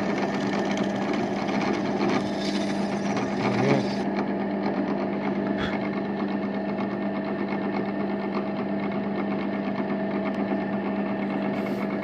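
Bench pillar drill running steadily with a constant motor hum as it drills the old felt bushings out of a piano action's wooden guide rail.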